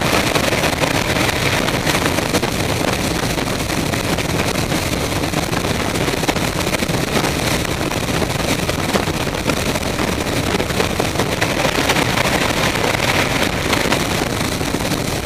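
Steady rush of air and engine noise inside a C-17's cargo hold with the rear ramp open in flight, the four turbofan engines running under the wind.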